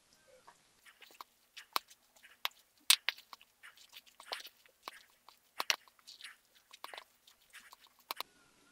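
A wooden spoon mixing yeolmu kimchi bibimbap in a stainless steel bowl, with irregular short clicks and scrapes of the spoon against the metal as the rice and vegetables are stirred. The clicks start about a second in and stop just before the end.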